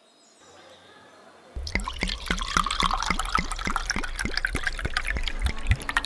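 Water dripping and trickling: faint at first, then from about a second and a half in a quick, steady run of drops.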